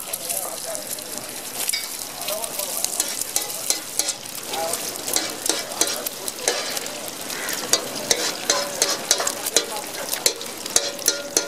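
Egg frying in hot oil on a large flat griddle: a steady sizzle with many sharp pops and crackles, coming thicker in the second half.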